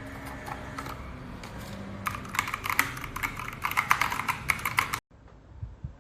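Typing on a mechanical keyboard fitted with Keychron PBT keycaps: a few light keystrokes at first, then a fast, steady run of key clicks from about two seconds in that stops abruptly about five seconds in.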